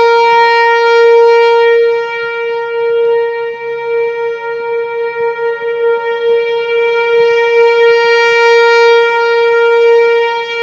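Outdoor tornado warning siren sounding one steady, unchanging tone, its loudness swelling and dipping. It signals a tornado warning.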